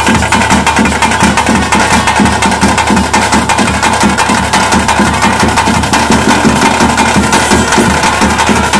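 Loud ritual music: fast, even drumming with a steady high tone held over it.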